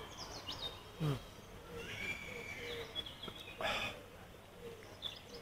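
Small birds chirping and twittering throughout, with a man drinking beer from a bottle: a short low gulp-like sound about a second in and a brief breathy exhale a little past halfway as he lowers the bottle.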